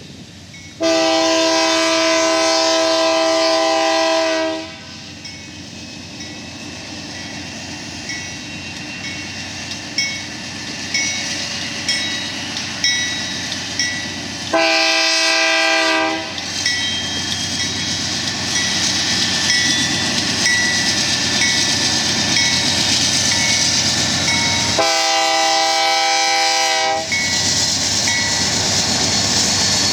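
A locomotive air horn sounds three blasts of several tones together: a long one about a second in, a short one about halfway and another near the end. Under it a loaded coal train's diesel locomotives pull hard to start the train on a grade, the rumble growing louder throughout. A regular ticking comes about once a second.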